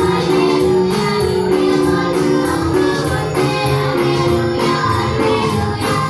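A group of girls singing a Christian song together into microphones, their voices amplified, over a steady percussion beat.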